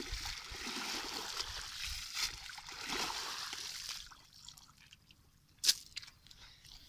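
Water sloshing and trickling in shallow, muddy pond water as a wet cast net is handled and a person wades. It is steady for about four seconds, then dies down, with one sharp click near the end.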